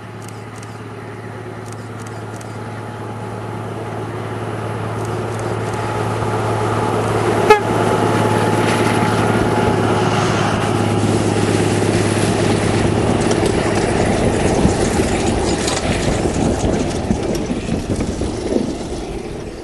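Diesel train on a 760 mm narrow-gauge railway approaching, its engine hum growing louder for about eight seconds, then running close by with clattering and clicking until the sound cuts off. A single sharp crack comes about seven and a half seconds in.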